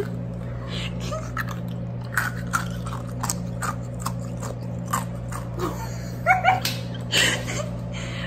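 Close-miked crunching and chewing of a snack: a string of short, irregular crunches over a steady low hum.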